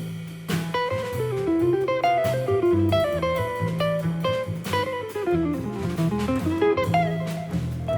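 Jazz quartet playing: a guitar plays quick descending runs of notes over bass and drum kit.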